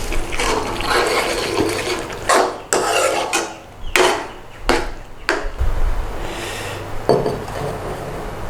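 Cookware clatter: about five sharp knocks of a utensil against a pan over a steady hiss, followed by a low rumble in the second half.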